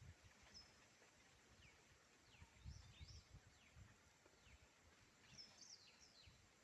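Faint bird calls: short, quick chirps and whistles that slide in pitch, coming in small clusters, over a low, uneven rumble.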